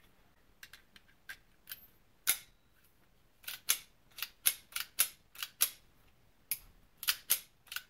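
Phoenix Arms HP22A .22 LR pistol's slide being worked by hand, a string of sharp metallic clicks, many in quick pairs, as the freshly reassembled action with its new recoil spring is cycled over and over. The slide runs a little rough, with a slight hang-up.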